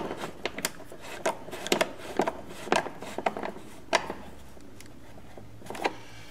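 Small red-handled ratchet driver clicking in short, irregular runs as it tightens a bolt on the vacuum motor mount; the clicks thin out after about four seconds.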